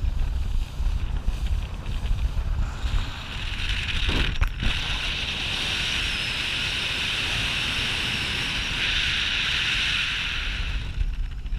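Wind buffeting the microphone on an open boat, a steady low rumble, with a steady higher hiss from about three seconds in until near the end.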